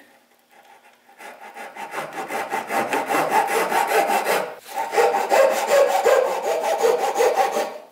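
Japanese pull saw cutting a half lap into a wooden tenon, in quick, even strokes. It starts about a second in, pauses briefly near the middle, then carries on.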